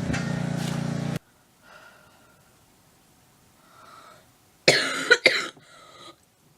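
A sick person's hacking cough: a quick run of loud coughs near the end, after a few faint breaths. A steady engine hum cuts off about a second in.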